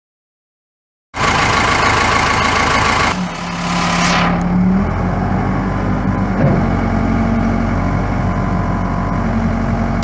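Case 580 Super L backhoe's diesel engine cranked by its starter about a second in, catching after about two seconds as the starter's whine falls away, then idling steadily.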